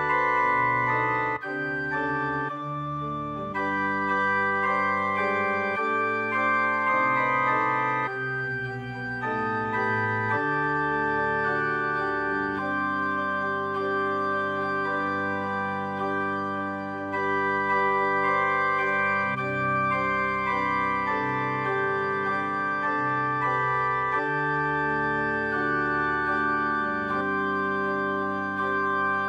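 Organ music played on a Yamaha electronic keyboard with an organ voice: slow, sustained chords that change every second or two.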